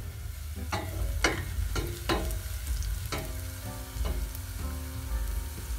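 Sliced red onions frying and sizzling in a stainless steel pot while a wooden spoon stirs, scraping and knocking against the pot about eight times. Background music with steady tones plays underneath.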